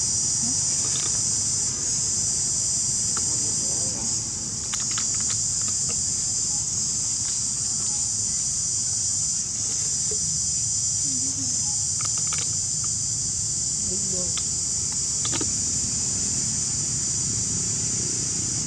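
A steady, high-pitched chorus of insects, with a few short clicks scattered through it.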